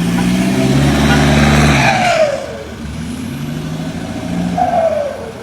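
Diesel engine revved hard for about two seconds, then dropped off, with a falling whistle as the revs fall; a second, shorter rev near the end ends the same way.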